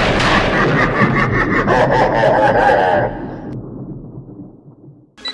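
A loud, noisy intro sound effect with a wavering tone in it. It drops off about three seconds in and fades away to silence.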